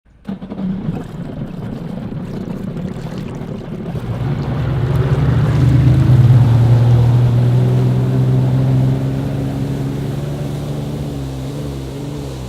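Jet ski engine running on the water with a steady drone, growing louder to a peak about six seconds in, then slowly fading as it moves away.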